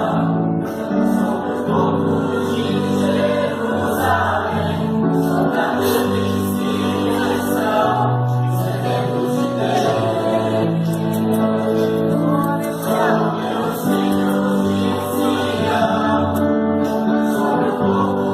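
Church choir singing a slow Christian song in sustained, held chords that change every second or two.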